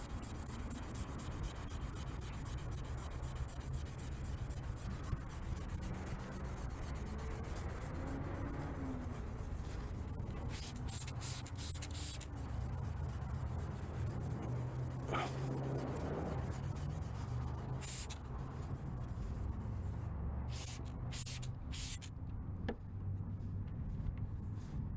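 1500-grit sandpaper rubbed by hand over a plastic indicator lens in steady back-and-forth strokes, with a few sharper scratchy strokes about halfway through and again near the end. It is cutting away the faded, scratched outer layer of the plastic.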